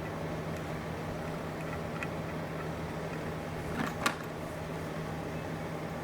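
Steady cabin drone of a Toyota Soarer (Z20) being driven, a constant low hum with a faint click or rattle about two seconds in and a slightly louder one about four seconds in.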